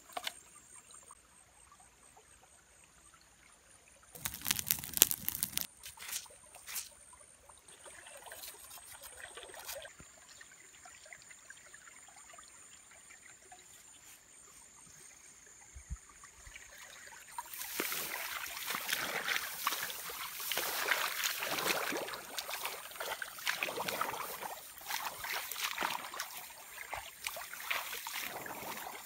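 Water splashing and dribbling with rice stalks rustling, as hands work down in a flooded rice paddy, busy and irregular through the second half. A short, louder burst of noise comes about four seconds in.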